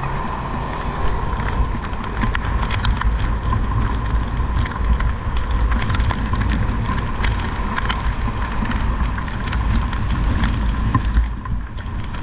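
Moving vehicle in the rain: steady low wind rumble on the microphone with a steady high hum, and many scattered sharp taps, like raindrops striking.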